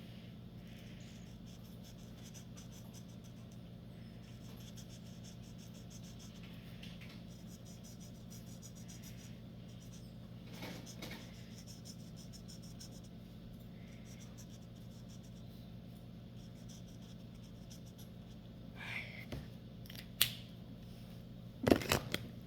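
Marker pen scratching back and forth on a colouring-book page, faint and rapid, over a steady low hum. A few sharp clicks and knocks near the end.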